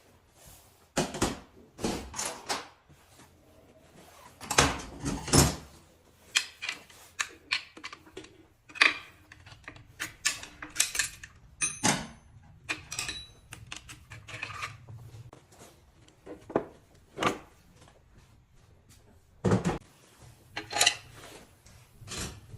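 Irregular metal clinks and knocks, with a brief ringing on a couple of strikes around the middle, typical of tools and metal parts being handled during gearbox repair work.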